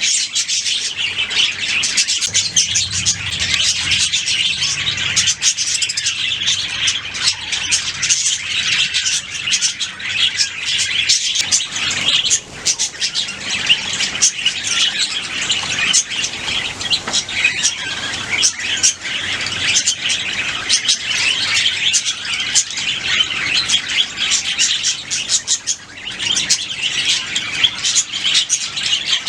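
A flock of budgerigars chattering, warbling and chirping without pause, many birds calling over one another.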